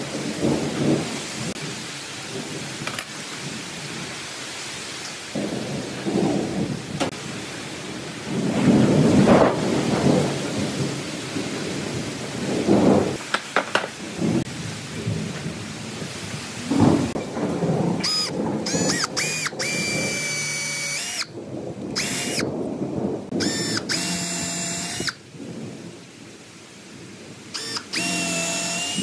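Rumbling and thumping as wooden slabs are handled on a workbench, then a power drill whirring in several short bursts, its pitch rising as it spins up and dropping as it stops.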